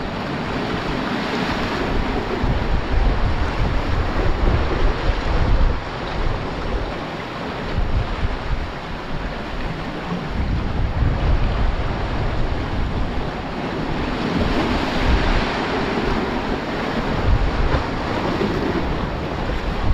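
Sea washing and breaking over reef rocks, rising and falling in surges, with wind buffeting the microphone in low rumbles.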